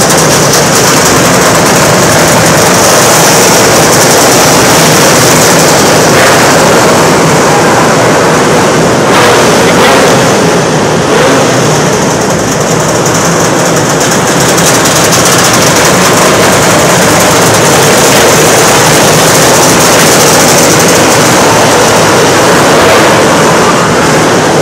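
Several small winged sprint cars racing on a dirt oval, their engines running loud and continuous with no break, inside a covered arena.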